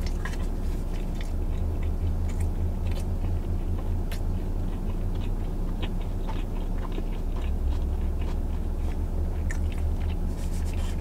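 A person chewing a mouthful of fast food with the mouth closed: soft, irregular clicks and smacks over a steady low hum inside the vehicle cabin.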